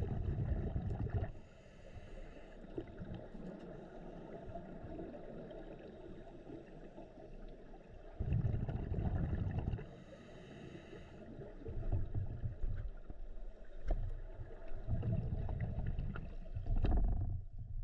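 Scuba diver's breathing heard underwater: low rumbling bursts of exhaled bubbles from the regulator every few seconds, with a brief hiss of inhaling twice between them.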